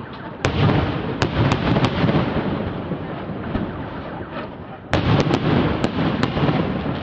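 Aerial firework shells bursting overhead. A loud bang about half a second in is followed by a few sharp reports and a rolling rumble that fades, then another loud burst about five seconds in with a quick string of sharp reports.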